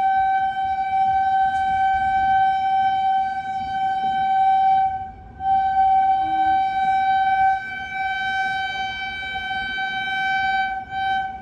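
Train's locomotive horn sounded in one long steady blast, broken briefly about five seconds in and cutting off near the end, over the rumble of the train running.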